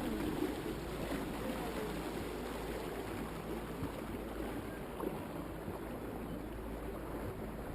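Water rushing and splashing along the hull of an electric cruising boat under way, over a low steady hum.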